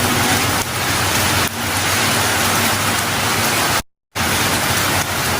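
Heavy rain falling as a steady, even hiss. About four seconds in, the sound cuts out to silence for a moment, then comes back.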